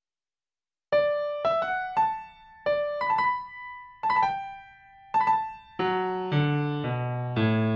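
Background music: a piano-like keyboard plays a melody of single struck notes, starting about a second in. Lower notes and chords join in under the melody in the second half.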